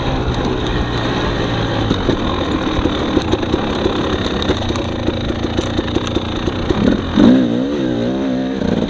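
Husqvarna TX300 two-stroke dirt bike engine running under way, its revs falling and rising with the throttle as the bike slows and picks up again on rough ground. There is a louder, uneven burst of revving near the end.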